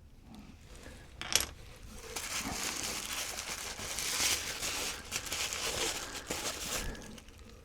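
Packing wrap crinkling and rustling for several seconds as a rock is unwrapped by hand, after a single sharp clack of hard stone a little over a second in.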